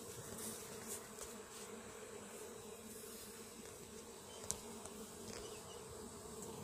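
Steady, faint hum of many bees buzzing together, with a few light clicks, the loudest about four and a half seconds in.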